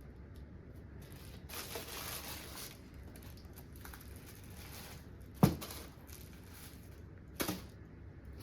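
Packaging rustling and crinkling for about a second, then a sharp knock about five seconds in and a lighter knock two seconds later.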